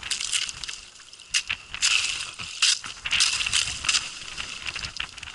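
Thin ice crunching and clinking against a boat's hull as the boat breaks through it, in irregular bursts of crackling and tinkling shards.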